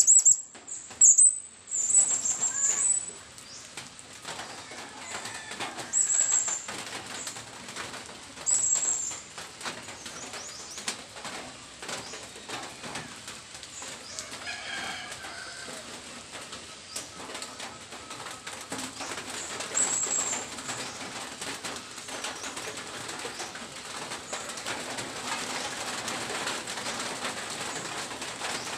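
Birds calling in the trees: short, very high, sharp chirps, several in the first few seconds and single ones about six, nine and twenty seconds in, over a steady rustling background.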